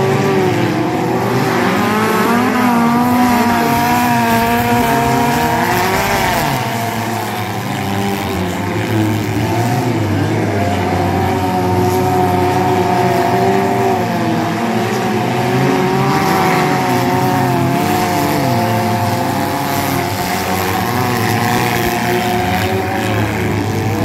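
Several small cars' engines running and revving together as they race around a dirt track, their pitches rising and falling as they accelerate and back off for the turns.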